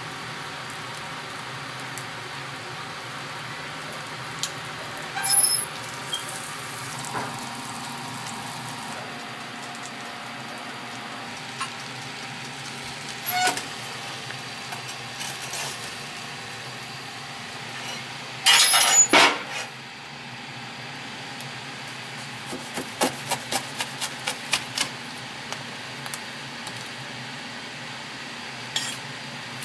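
Commercial kitchen sounds at a panini press: a steady hum from the kitchen's fan or ventilation under scattered metal clanks from the grill and utensils. The loudest clatter comes about two-thirds of the way through, and a quick run of about ten light taps follows soon after.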